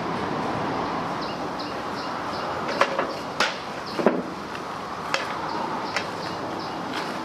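Baked clay shell of a beggar's chicken being broken apart by hand, its dried lotus-leaf wrapping peeled away: a handful of sharp knocks and cracks, the loudest about four seconds in, over a steady background hiss. Short bird chirps repeat throughout.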